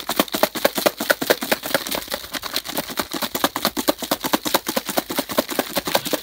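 Fried chicken wings rattling and knocking inside a plastic pitcher shaken by hand to coat them in salt and chili: a fast, unbroken run of clicks and knocks, about ten a second.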